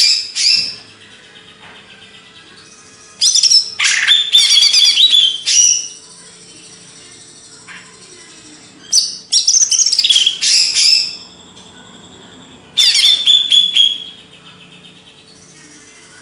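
A cucak ijo (green leafbird) singing in four loud bouts of rapid, varied chirps and sweeping whistles, each lasting one to three seconds with short pauses between, over a faint steady hum.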